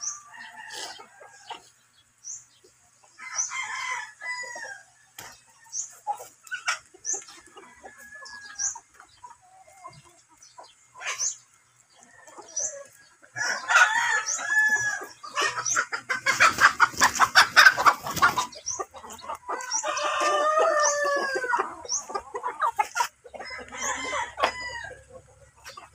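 Chickens: roosters crowing about four times, with hens clucking in between, and a loud, rapid run of short clucks about two-thirds of the way through.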